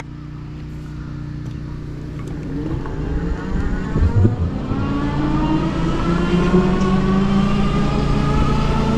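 Raev Bullet GTX e-bike pulling away: the electric motor's whine rises steadily in pitch as it gathers speed, over wind and tyre noise. There is a knock about four seconds in.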